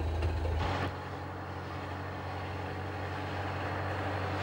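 An old car's engine running steadily as it drives up a road, a low hum that grows slowly louder as the car approaches. Under a second in, a deeper rumble cuts off.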